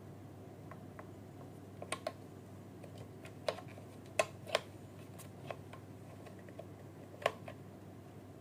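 A dozen or so irregular sharp clicks and taps of hard plastic being handled, over a steady low hum.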